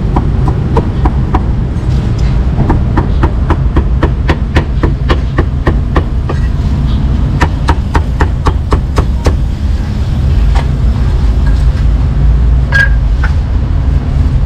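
A cleaver chopping roast meat on a chopping block: quick, even strikes about four a second through the first nine seconds or so, with a short pause near the start, then a few scattered chops. A steady low rumble runs underneath.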